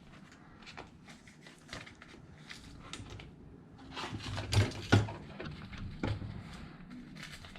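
Hands working a steering servo lead loose inside an RC truck's plastic receiver box: small plastic clicks, rustling and scattered knocks, with two louder knocks about four and a half and five seconds in.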